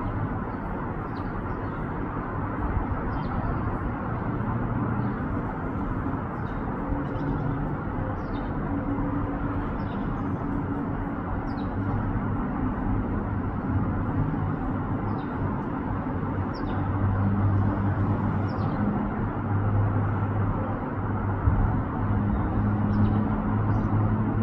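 Steady low vehicle rumble of engine and traffic noise, growing somewhat louder past the middle. Faint, short, high chirps from a bird sound every second or two, each one falling in pitch.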